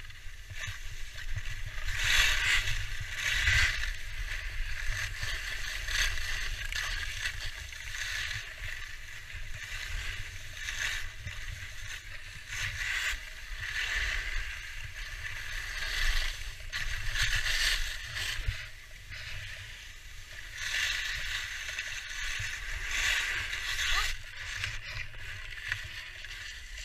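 Skis scraping and carving over packed snow, the hiss swelling and fading with each turn every couple of seconds, over a low wind rumble on the microphone.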